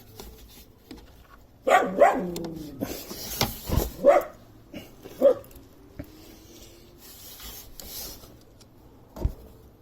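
A dog barking a few short times, among sharp clicks and knocks.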